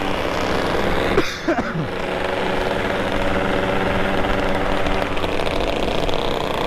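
Motorcycle engine running under load, with the revs dropping briefly about a second in and then picking back up.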